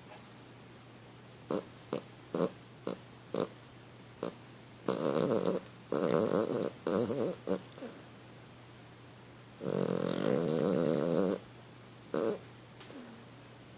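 A sleeping dog snoring: a run of short snorts a few tenths of a second apart, then longer snores, the longest lasting about a second and a half.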